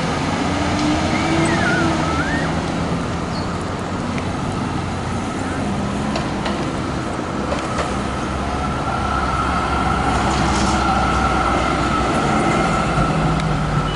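Steady city street traffic noise with vehicles running past, and a thin whine held for several seconds past the middle.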